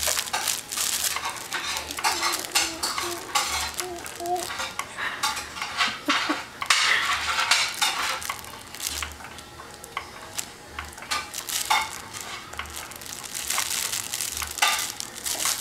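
Soft cloth baby book being gripped and handled by an infant, its pages crinkling and rustling in irregular crackly bursts. A faint low pulse repeats about once a second underneath.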